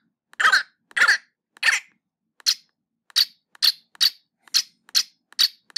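A spoken "hello there" sample in a Kontakt Player sampler instrument, triggered note by note from the on-screen keyboard and heard through a speaker. There are about a dozen short notes, roughly two a second. Each is higher in pitch and shorter than the last as the notes move up the keyboard, so the voice is transposed up into a high squeak.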